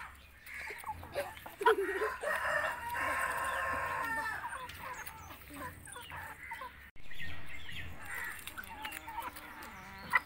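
Native chickens clucking around a feeding hand, and a rooster crowing once for about two seconds, starting about two seconds in.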